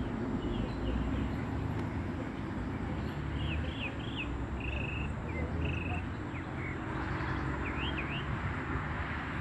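Birds chirping: scattered short calls and quick up-and-down notes, over a steady low rumble.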